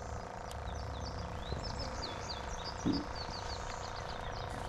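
A bird singing a quick run of high chirps that stops near the end, over a steady hum and a low rumble, with one soft thump about three seconds in.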